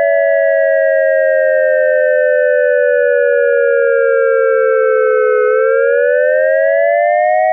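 ASC digital electronic siren controller's dual-tone synthesized siren sounding its Fire signal: two close tones together, gliding slowly down for about five seconds, then rising back up over about two seconds and holding steady near the end.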